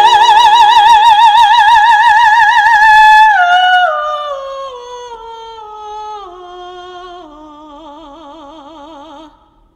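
Operatic soprano voice holding a loud high note with wide vibrato, then descending step by step, growing softer, until it stops near the end.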